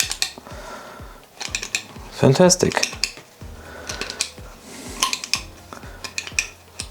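Small metal clicks and clinks, scattered and irregular, from Vespa PX 200 clutch parts (plates and springs) being handled and checked during reassembly.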